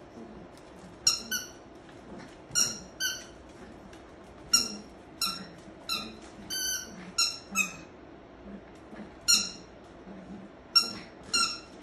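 Puppy biting a squeaky toy ball, setting off about a dozen short, high-pitched squeaks, most of them in quick pairs.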